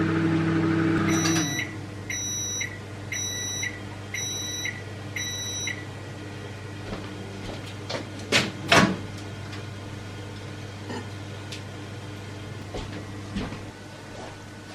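Microwave oven reheating food: its running hum stops about a second and a half in, and it gives a run of short, evenly spaced high beeps to signal the end of the cycle. Two sharp knocks follow a little past the middle.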